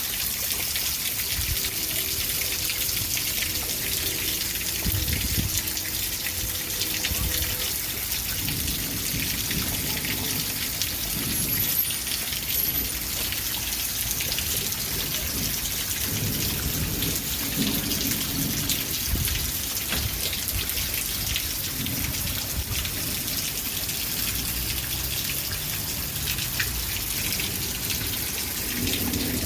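Steady rain falling, a continuous hiss of many fine drops pattering on a surface, with low, uneven rumbling underneath.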